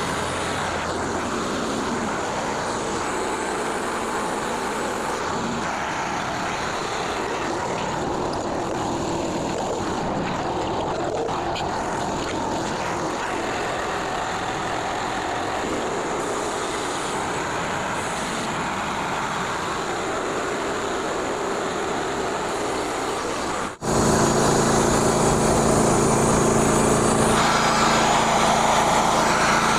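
The small gas engine of a portable band sawmill running steadily. About 24 seconds in, the sound drops out for an instant and returns louder, as a steady engine hum.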